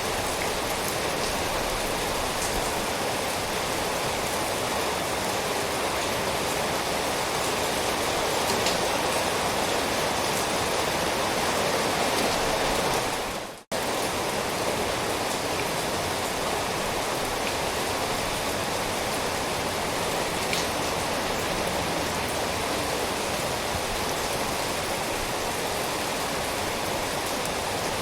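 Steady rain, an even dense hiss. About halfway through it fades out for a moment and starts again abruptly.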